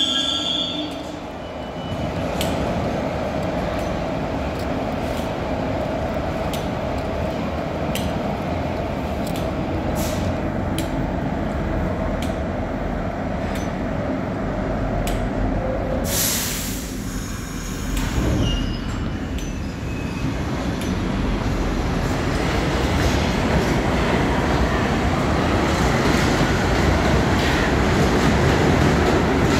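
R62A subway train running on the track with a steady rumble and regular clicks. There is a brief loud hiss about sixteen seconds in, and the train grows louder toward the end as it moves past.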